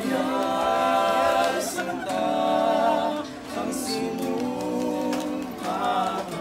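Small group of male carolers singing a carol together in long held notes, accompanied by a strummed acoustic guitar, with a short break between phrases about halfway through.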